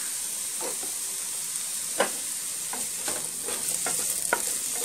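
Sliced mushrooms sizzling as they sauté in a little olive oil in a hot pan, with a steady high hiss. A spoon or spatula stirring them makes scattered clicks and scrapes against the pan, the sharpest about two seconds in.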